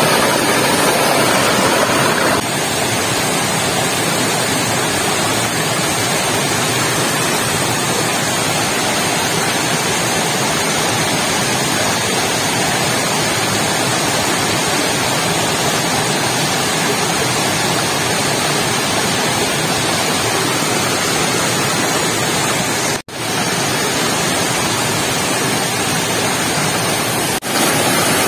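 Shallow mountain stream running over rocks: a steady hiss of rushing water. It changes in tone about two seconds in and cuts out briefly twice near the end.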